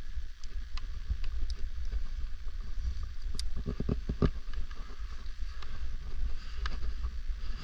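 Wind buffeting the microphone as a steady low rumble with hiss, with a few light clicks scattered through it and a short run of knocks about four seconds in.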